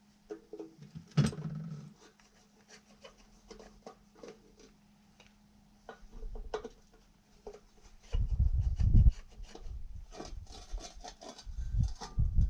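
Hand tools and metal parts being handled while the guard is unscrewed from a bench grinder: scattered clicks, taps and rubbing, with a sharp knock about a second in and dull thuds around eight seconds and again near the end, over a faint steady hum.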